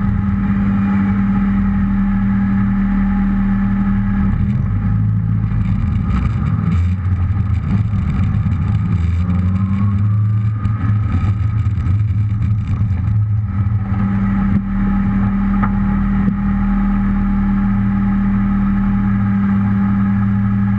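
Car engine heard from a camera mounted low on the car: a steady note at first, then pulling away and driving for about ten seconds with the pitch varying, then settling back to a steady note.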